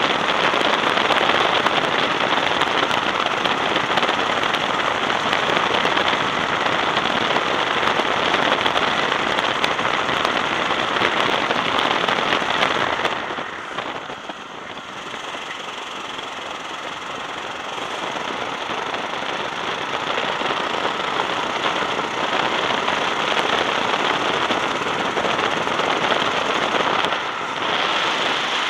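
Racing go-kart engine running hard, heard through the kart's own onboard camera with a rasping, crackly wash of engine and wind noise. It eases off about halfway through, then builds back up again as the kart accelerates.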